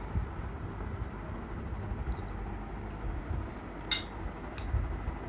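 Low rumble of a phone being handled, with a few faint clicks and one sharp click about four seconds in.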